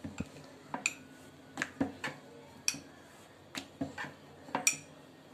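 Wooden rolling pin rolling out dough on a plastic board: a string of light knocks and clicks, about two a second, as the pin is pushed back and forth.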